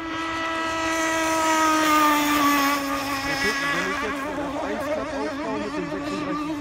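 Radio-controlled model speedboat running flat out across a lake, its high-pitched motor note getting louder to a peak about two seconds in and then dropping slightly in pitch as it passes, after which the note wavers up and down.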